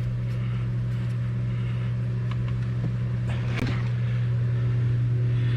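Automotive smoke leak-detector machine running with a steady low hum, its pump pushing smoke into the engine intake to find vacuum leaks.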